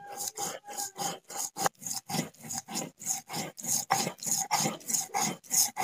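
Stone roller worked rapidly back and forth over a pitted stone grinding slab (shil-nora), grinding cumin seeds and dried red chillies into paste, about four strokes a second.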